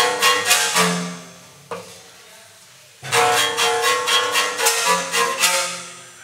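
Bowed string instrument playing in two short phrases, with a pause of about two seconds between them.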